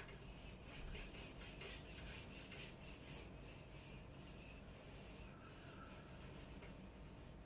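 Whiteboard duster wiping marker writing off a whiteboard: a faint run of quick, even back-and-forth rubbing strokes, about three a second.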